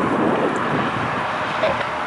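Steady jet engine noise from an airliner on or near the runway, mixed with wind buffeting the microphone.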